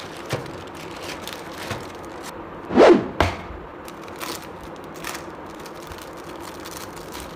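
Clear plastic wrapping around a leather wallet crinkling and crackling as hands handle it, in many small crackles. About three seconds in there is one louder swoosh, followed by a short knock.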